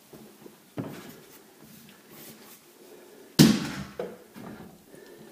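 Work handling noise: a soft knock about a second in, then a sharp, loud knock with a short ring-out about three and a half seconds in.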